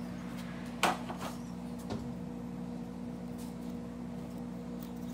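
A single sharp clunk about a second in, then a lighter knock and a faint click, over a steady hum.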